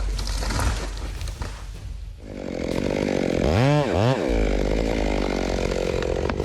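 Large two-stroke Stihl MS 880 chainsaw running. About two seconds in it briefly drops off, then it runs on with two quick revs up and back down near the middle before settling to a steady speed.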